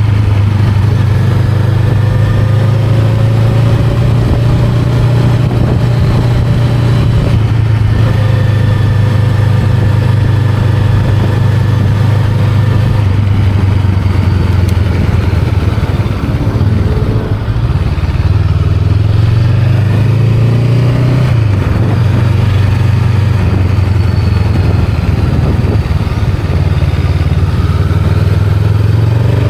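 Honda Rebel 500's parallel-twin engine running at a steady cruise. A little past halfway it eases off briefly, then rises in pitch again as it picks up speed, and starts rising once more near the end.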